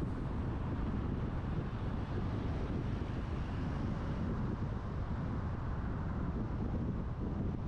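Steady low rumble of road and wind noise from a car driving along a city avenue, with a faint hiss that swells briefly a few seconds in.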